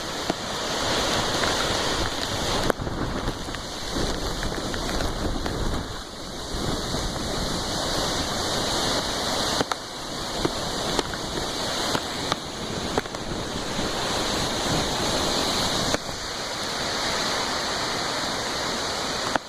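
Hurricane wind and rain hissing steadily, with wind buffeting the microphone and a few sharp ticks.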